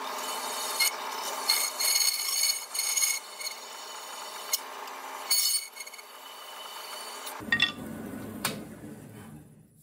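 Bandsaw with a freshly made, sharp blade, running in high range and ripping a wooden knife-handle block: a steady rasping cut with a high metallic ringing, about seven seconds long. Then the saw runs free with a couple of sharp knocks, and the sound fades out near the end.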